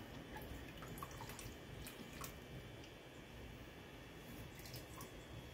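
Faint trickling and dripping of dark soy sauce poured from a bottle into a pot of liquid, with a few small drip ticks.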